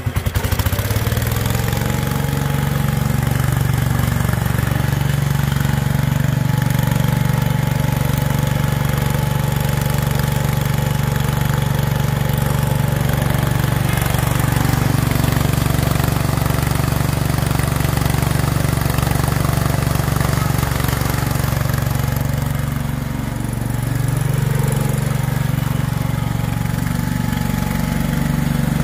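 International Harvester garden tractor's engine running steadily as the tractor is driven across a lawn. The engine picks up just after the start and eases off briefly a little over two-thirds of the way through before steadying again.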